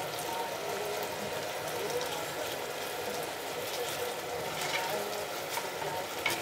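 Curry paste and coconut milk sizzling and bubbling in a stainless steel saucepan as a spoon stirs through it, with a few light clicks of the spoon on the pan.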